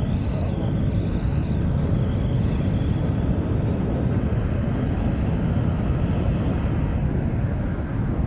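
Steady wind rush on the microphone over the Yamaha NMAX 155 scooter's single-cylinder four-stroke engine, held at full throttle at high speed while it pulls towards 100 km/h.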